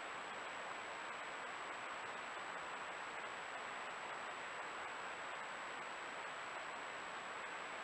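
Steady even hiss with a thin, constant high-pitched whine above it: the recording noise of a Browning Recon Force Advantage trail camera's microphone and electronics.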